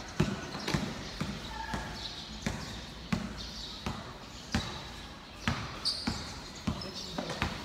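A basketball being dribbled on a concrete court: a run of sharp bounces, roughly one every half second.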